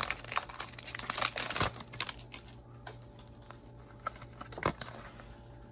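Foil booster pack wrapper crinkling and crackling as it is torn open and the cards are pulled out. This dies down after about two seconds into a few light taps of cards being handled.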